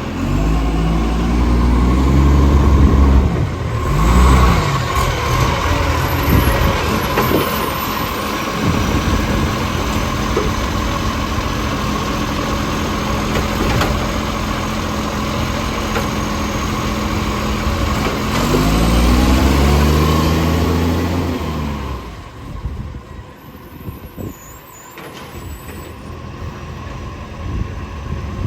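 Garbage truck's diesel engine, which has an exhaust leak, revving up twice: rising in pitch over the first few seconds and again about 18 seconds in, running steadily in between. It drops quieter near the end.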